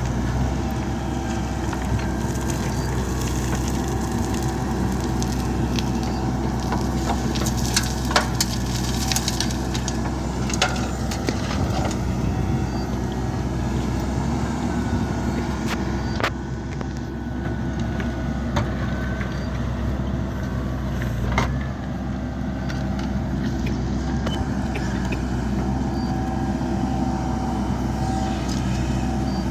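Diesel engine of a backhoe loader running steadily under work, with a thin whine that comes and goes and scattered sharp knocks and clanks as it digs and loads dirt.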